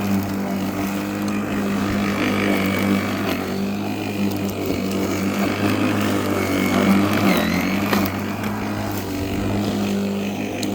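Worx 40cm battery lawnmower's electric motor running at a steady speed with a constant hum, its blade cutting grass.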